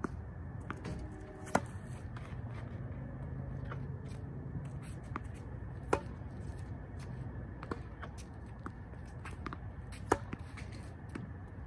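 Yonex EZONE tennis racquet striking balls fed from a ball launcher: three sharp hits about four seconds apart, with fainter ball bounces and ticks between them over a steady low rumble.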